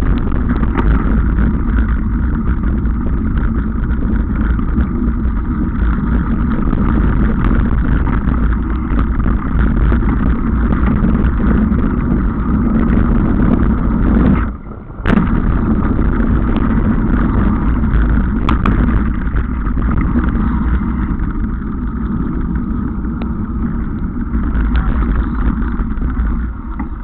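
Rush of wind on the microphone with tyre and frame rattle from a mountain bike riding fast down a trail, steady throughout apart from a short dip about halfway through.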